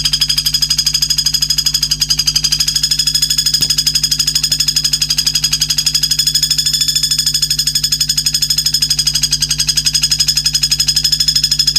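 Recorded birdsong-training ('isian') sound: a rapid, even, buzzing trill that pulses steadily on one high pitch, over a low steady hum.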